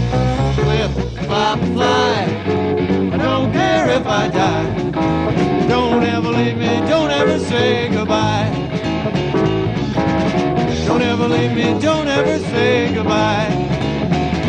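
Rock band music from a 1980s demo recording, playing loud and steady.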